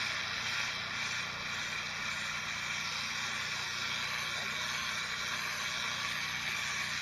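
Pressure washer's turbo (rotating) nozzle blasting water onto concrete block paving: a steady, even hiss of spray with a low steady hum underneath.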